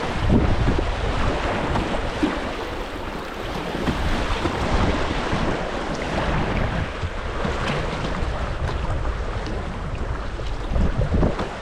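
Flowing river water rushing around a moving kayak, with wind rumbling on the microphone.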